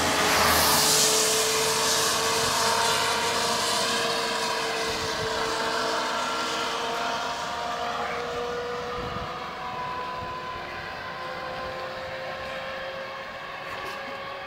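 A motor vehicle's engine drones steadily, its pitch creeping slowly upward as it grows gradually quieter. A rushing noise, loudest in the first couple of seconds, fades away.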